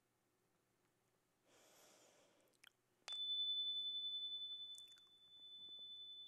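Small handheld metal chime bar struck once about three seconds in, ringing a single high, clear tone that slowly pulses and fades, marking the close of a deep-listening meditation.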